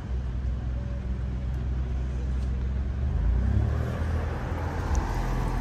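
Maserati GranTurismo's twin-turbo V6 running at low revs as the car creeps forward, a low steady drone that grows louder in the second half as it draws closer.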